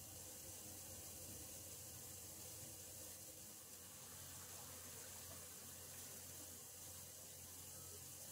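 Faint, steady hiss of water running through water pipes that are left running to keep them from freezing.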